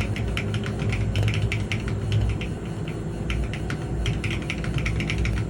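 Mechanical keyboard typing: rapid, continuous keystrokes on an MKC75 with HMX Macchiato switches and FBB After The Rain keycaps, heard over a steady low hum.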